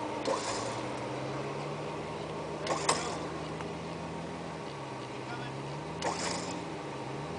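A vehicle engine running steadily at low revs, its pitch rising and falling a little, with a few short sharp noises about three and six seconds in.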